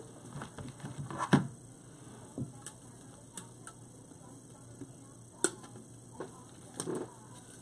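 Scattered light clicks and taps of a wire hanger being worked off a sign board by hand, with sharper knocks about a second and a half in and again about five and a half seconds in.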